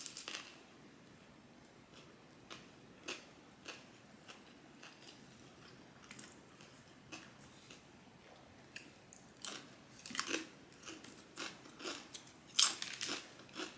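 A person chewing food close to the microphone, with scattered short crisp crunches and mouth clicks that come thicker and louder in the last few seconds.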